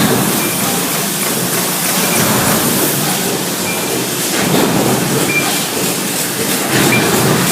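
Steady, loud din of factory machinery, with a few short high-pitched tones sounding now and then.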